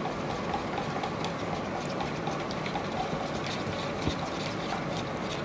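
Stir stick scraping around a container of tinted epoxy as it is mixed, a light rhythmic ticking of about three strokes a second over a steady low hum.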